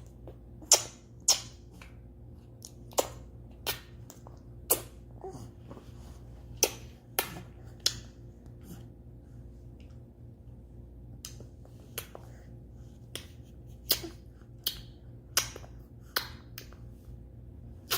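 A one-year-old baby making sharp popping clicks with his mouth, a sound like bubbling. They come about once a second, with a pause in the middle.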